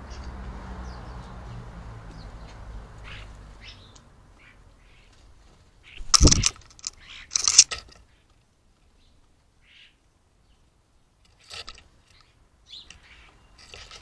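European starlings' short chirps and clicks over a bird table. About six and seven and a half seconds in come two loud bursts of wing flapping and scrabbling as birds take off from the table.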